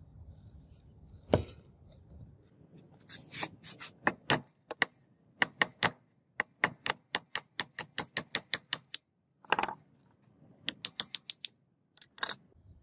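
Sharp metallic taps and clicks, often several a second with short pauses, as the rusted armature of an angle grinder motor is worked out of its stator housing clamped in a vise. A single louder knock comes about a second in.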